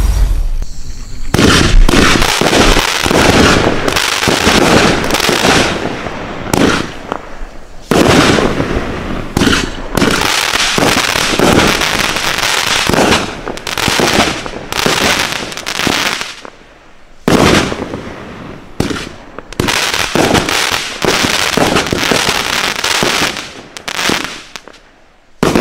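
Winda Fireworks 'Space Rocks' 200-gram, 21-shot consumer fireworks cake firing from about a second in: a quick run of shots, each a launch and an aerial burst, with short lulls between volleys, tapering off near the end.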